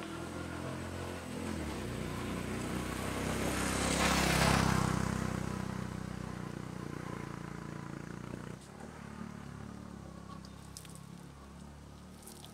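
A motor vehicle's engine passing by, growing louder to a peak about four seconds in and then fading away.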